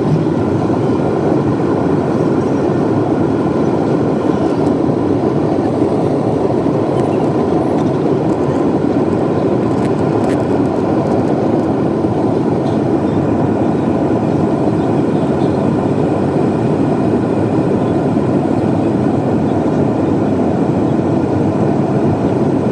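Steady jet airliner cabin noise heard beside the wing: a constant rush of engine and airflow with a few faint steady tones above it, during the climb after takeoff.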